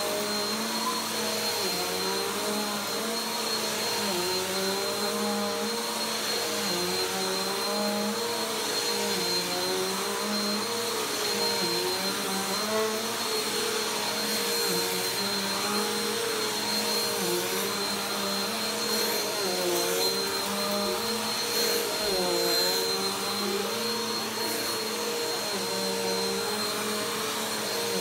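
Upright vacuum cleaner running on carpet, its motor note dipping and recovering every second or two as the head is pushed back and forth, over a steady high whine. A few faint crackles of debris being sucked up come in the middle.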